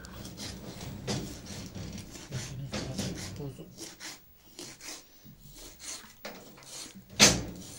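Kitchen knife chopping shredded cabbage on a plastic cutting board: irregular knocks of the blade on the board, with one louder knock near the end.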